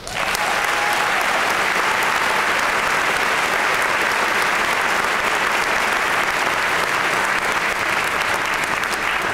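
Audience applauding, a steady, dense clapping that starts at once.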